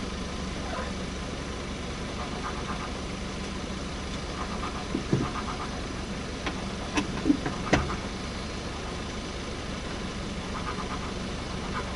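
Suzuki Swift Sport ZC31S's 1.6-litre four-cylinder engine idling steadily with an abnormal noise that the owner puts down to a failing part around the accessory drive belt. A few sharp clicks or knocks come through about halfway in.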